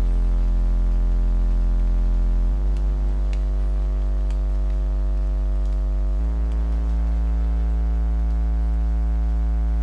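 Sustained synthesizer chords over a deep bass drone, shifting to a new chord about two and a half seconds in and again about six seconds in.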